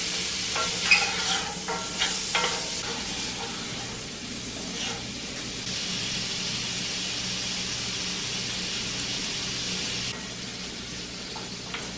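Sliced sausage sizzling in butter and oil in a cast-iron skillet. There are a few clacks and scrapes of a wooden spoon stirring in the first few seconds, then a steady sizzle that drops a little about ten seconds in.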